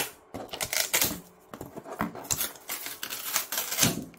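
Hands handling large printed plastic panels and lifting the flexible textured build plate off the 3D printer's bed: irregular scrapes, rustles and clicks.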